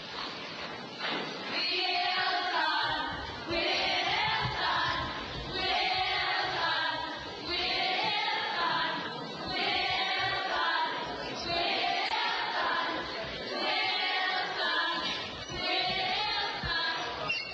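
A group of students singing together as a chorus, in phrases of about two seconds with short breaks between them.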